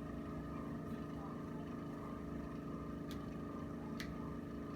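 A steady mechanical hum, with two short sharp clicks about three and four seconds in.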